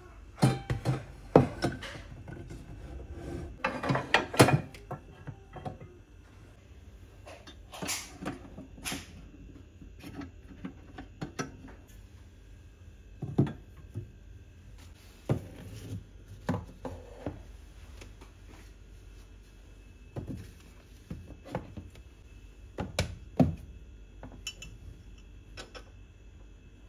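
Frying pans and a metal saucepan being set into a wire pan organizer rack on a cabinet shelf: scattered clanks and knocks of cookware against the rack and shelf, busiest in the first few seconds and then coming every few seconds.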